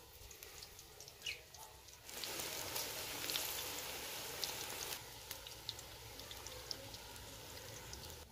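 Battered cauliflower pakoras sizzling in hot oil in a large aluminium pan, with scattered crackles. The sizzle grows loud about two seconds in as more battered pieces go into the oil, then drops back to a quieter, steady sizzle about five seconds in.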